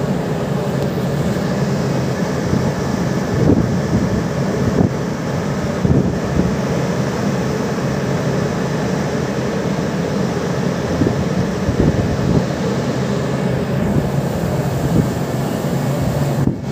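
Steady droning hum of a ship's machinery with a constant low tone, buffeted now and then by wind on the microphone.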